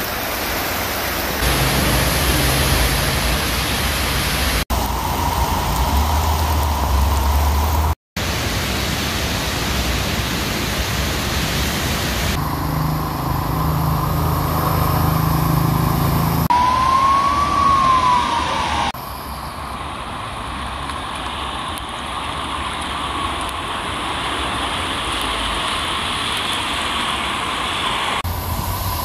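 Heavy rain and running floodwater on a street as a steady hiss, with passing traffic, cut into several short takes that start and stop abruptly. About two-thirds of the way through, a siren gives one rising-and-falling wail.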